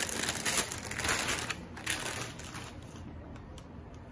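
Clear plastic packaging bag crinkling and rustling as hands open it and pull a knit garment out. The crinkling is loudest in the first two seconds, then dies down to a soft rustle.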